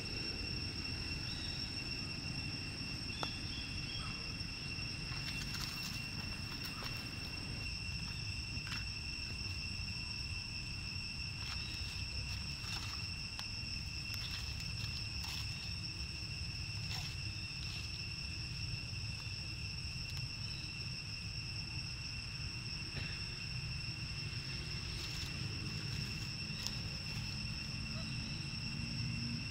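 Insects droning steadily in one unbroken high tone, over a low rumbling background, with a few faint scattered ticks and rustles.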